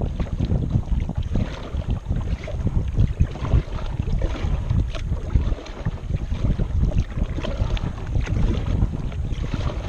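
Wind buffeting the microphone in a gusty rumble, with water splashing from a kayak being paddled.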